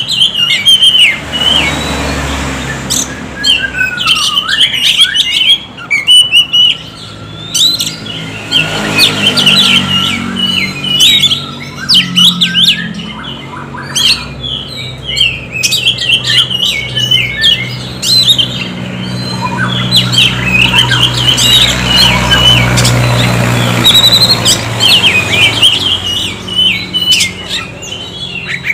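Oriental magpie-robin singing a rapid, varied stream of chirps and whistled phrases with few pauses, over a faint low hum.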